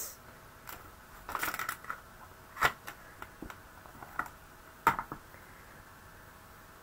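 Clear plastic photopolymer stamp case being handled: a few scattered plastic clicks and taps, the loudest about five seconds in, with quiet room tone between.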